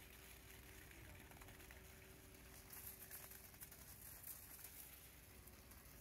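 Near silence: a faint steady hum at one pitch, with faint scattered crackling from about halfway through.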